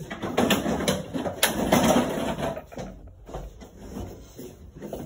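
Loud rustling and bumping movement noise close to the microphone, with scattered clicks, fading near the end.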